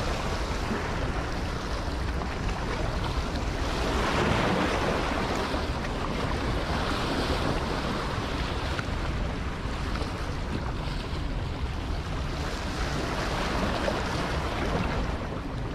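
Steady rushing noise of water in a dam's tailwater, mixed with wind buffeting the microphone, swelling slightly about four seconds in.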